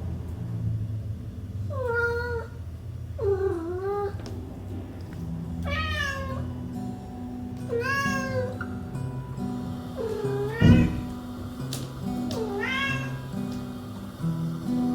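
A domestic cat meowing six times, each call bending up and then down in pitch, over background music. A sharp thump about ten and a half seconds in is the loudest sound.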